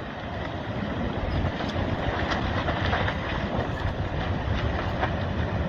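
A large landslide sliding into the sea: a steady, dense rushing rumble with scattered crackles of breaking ground and debris, growing a little louder over the first second or two.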